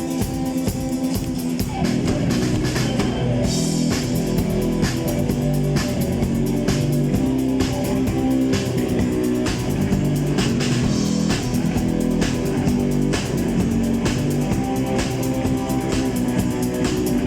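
Rock band playing live: drum kit keeping a steady beat under electric guitars and bass guitar, with no vocals.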